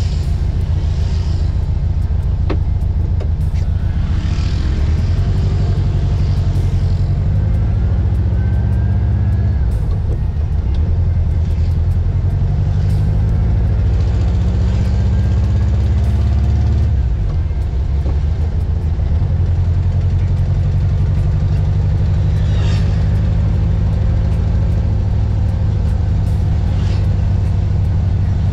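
Car engine and road rumble heard from inside the cabin while driving. The engine note climbs twice as the car accelerates, dropping off about ten seconds in and again around seventeen seconds, as at a gear change or easing off the throttle.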